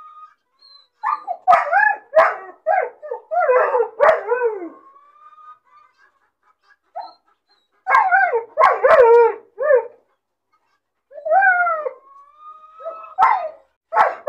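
A puppy crying: three or four bouts of short yelping barks and howl-like cries, with a thin, high whine drawn out between some of them. This is the crying of a puppy left alone.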